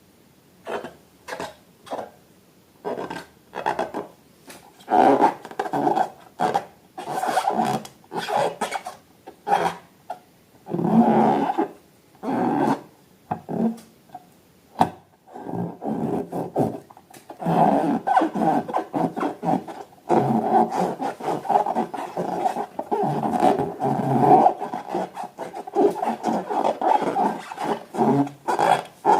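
Rubber balloons making a long series of short, loud squeaking, rasping sounds, coming thicker and more continuous in the second half.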